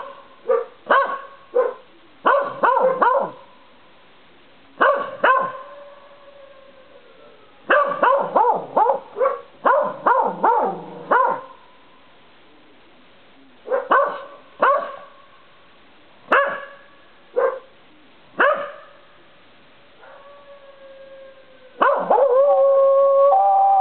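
Dogs, a hound and a Welsh corgi, barking in clusters of sharp barks with short pauses between. Some barks draw out into howls, and a long, loud, wavering howl comes near the end.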